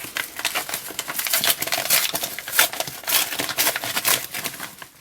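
Amazon package being opened by hand: rapid crinkling and rustling of the packaging, with many quick scratchy clicks.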